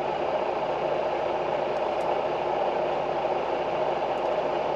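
Semi-truck engine idling with a steady hum.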